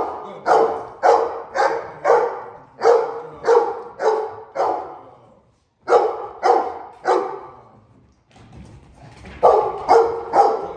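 Black Russian Terrier barking at a decoy during protection work, in a quick run of about two barks a second. It breaks off for a moment partway through, barks three more times, then pauses again and starts barking again near the end.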